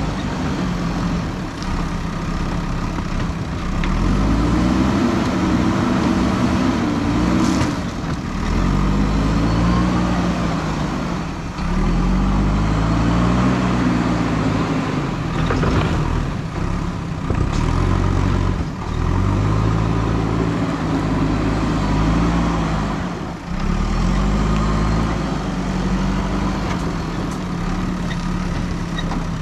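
JCB 3DX backhoe loader's diesel engine running under load, its pitch rising and falling back about every three to four seconds as it works the loader arm and bucket.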